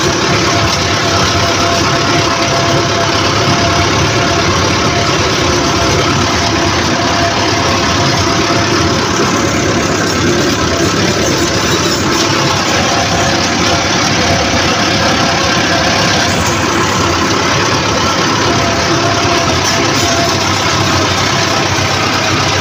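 Farm tractor's diesel engine running steadily while the tractor is driven, heard up close from the driver's seat.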